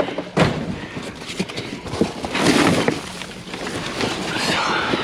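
A knock and then bursts of scraping and rustling as cardboard boxes and scrap are shifted around inside a metal dumpster.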